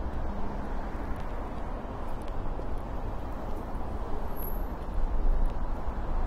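Steady hum of city road traffic with a low rumble, swelling briefly about five seconds in.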